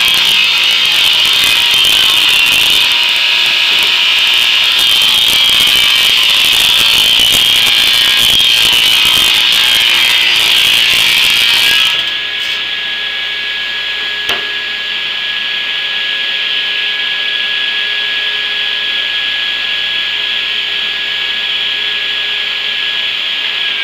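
Table saw ripping a thin strip from a pressure-treated deck board for about twelve seconds, then the blade spinning free with a steady whine once the cut is through.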